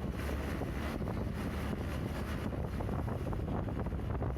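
Steady low vehicle rumble with wind buffeting the microphone.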